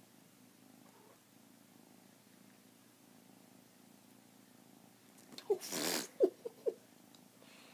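Maine Coon kitten purring faintly and steadily while its tummy is rubbed. About five and a half seconds in comes a brief loud noisy burst with a few short squeaks.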